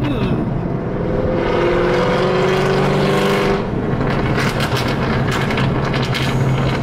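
Car engine and road noise heard from inside a moving car. About a second and a half in, an engine revs up louder with a slightly rising pitch, then eases back about two seconds later.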